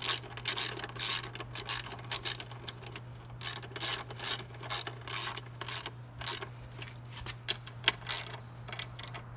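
Socket ratchet wrench clicking in short runs of rapid clicks with brief pauses, as a rack bolt on a motorcycle is run in by hand.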